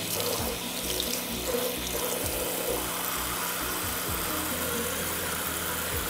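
A bathroom sink faucet runs steadily into the basin, with hands rinsing under the stream at first. Background music plays underneath.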